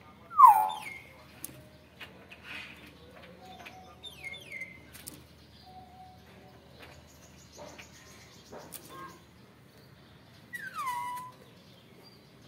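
Caged Nias hill myna giving loud, piercing whistled calls that slide downward in pitch: one just after the start, the loudest, another about four seconds in and a third near the end, with a few faint clicks in between.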